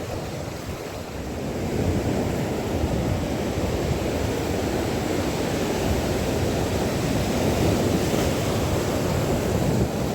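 Wind buffeting the microphone over rushing water, a steady rumbling noise that gets louder about a second and a half in and then holds.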